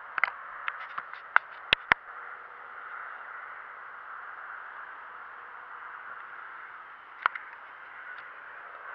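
Steady hiss with a handful of sharp clicks. The two loudest clicks come close together about two seconds in, and another comes near the end.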